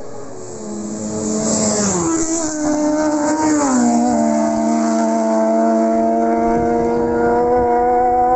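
Racing motorcycle going past at speed: its engine note drops steeply in pitch as it goes by, then holds a steady note that creeps slowly upward as it carries on down the road.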